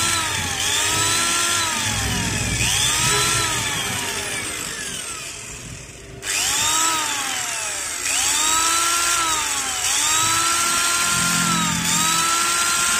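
Bull BL8954 angle grinder motor switched on and off repeatedly, its whine rising as it spins up and falling as it coasts down each time, with one longer run-down about halfway before it restarts. The grinder is running backwards (clockwise) on a Makita 9500N-type armature, which makes its carbon brushes spark heavily.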